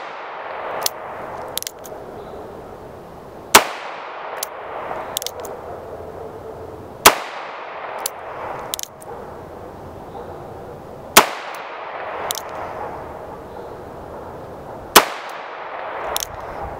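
Four shots from a Smith & Wesson Model 351 PD AirLite .22 Magnum snub-nose revolver, fired single action with Federal 40-grain FMJ, about four seconds apart, each a sharp loud crack. Between shots come short double clicks as the hammer is thumbed back to cock it.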